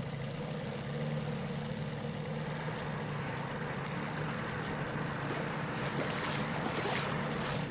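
Small inflatable dinghy's outboard motor running steadily, with water splashing against the hull and wind on the microphone; the splashing grows louder near the end.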